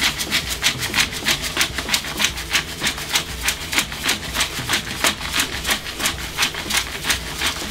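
Himalayan salt grinder being twisted over a pot: a steady run of gritty crunching clicks, about five a second, as the coarse salt is ground.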